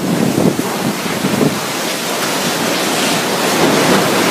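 Typhoon wind and heavy rain making a loud, steady rush that swells and eases with the gusts, with wind buffeting the microphone.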